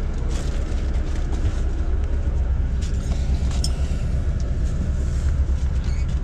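Intercity coach's diesel engine giving a steady low rumble, with a few faint clicks over it.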